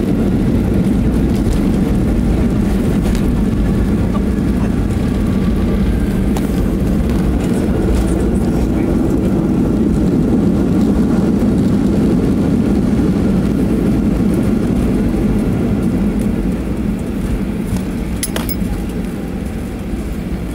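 Cabin noise of a Boeing 737 airliner on its landing rollout just after touchdown: a loud, steady low rumble of engines and wheels on the runway, easing off a little near the end as the plane slows.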